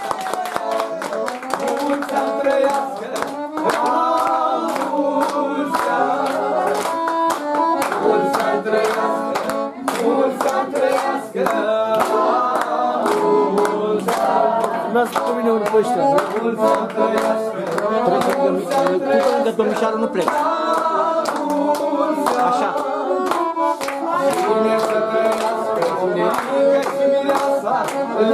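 Music with singing over a fast, sharp beat, with hand-clapping along.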